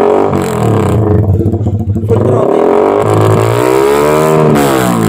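Motorcycle engine with an aftermarket exhaust pipe revved twice to half throttle, its pitch rising and falling back each time, the second rev longer.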